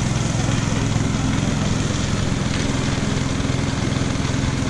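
Motorcycle V-twin engine running steadily while riding at an even speed, with rushing wind and road noise.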